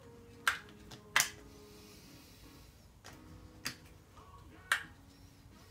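Four or five short, sharp clicks at uneven intervals, the loudest about a second in, over a faint low steady hum.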